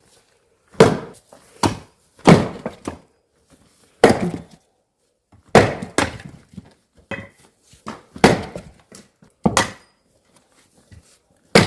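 Oak firewood being split with an axe: a series of sharp chopping blows, roughly one every one to two seconds. Smaller knocks follow most blows as the split pieces fall.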